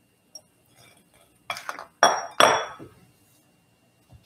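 A glass mixing bowl and other kitchenware being set down and moved on a kitchen counter: a light tap, then three sharp clinks close together about halfway through, each ringing briefly.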